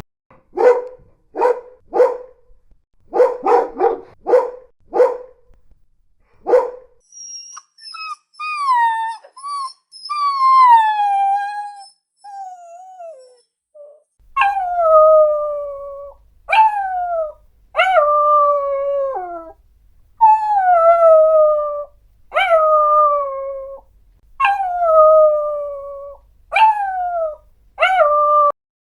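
Dogs barking: about ten short, sharp barks in the first six seconds. These are followed by high whining cries that slide down in pitch. Then comes a run of about eight drawn-out howling cries, each falling in pitch.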